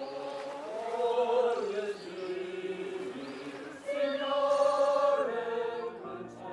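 Small choir of men's and women's voices singing a slow song in harmony, holding long notes, growing louder about four seconds in.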